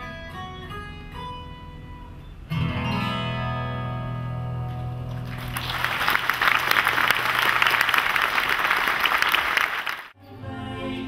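Closing notes of hula music on a plucked string instrument, ending on a held chord, followed by an audience applauding for about four seconds. The applause cuts off suddenly about ten seconds in, and new music starts.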